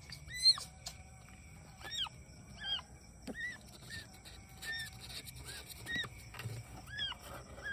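Newborn kitten, just born and still wet, mewing: short, thin, high-pitched cries that rise and fall, about one a second. The loudest comes about half a second in.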